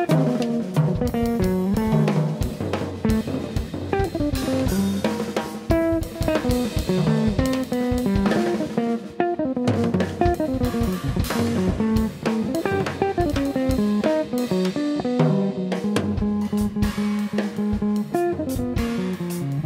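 Archtop electric guitar and drum kit playing a jazz tune together: a running line of single guitar notes over busy drums and cymbals, settling into longer held notes near the end.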